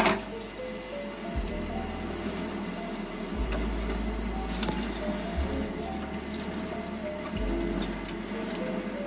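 Water from a handheld shower sprayer running steadily onto a wet dog's coat and a stainless steel tub while shampoo is rinsed out, with background music over it.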